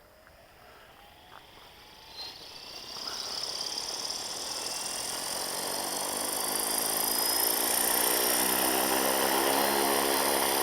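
Flywing FW450 electric RC helicopter spooling up for take-off: the brushless motor and rotor head whine rises steadily in pitch and grows louder over several seconds, then settles at a steady head speed near the end.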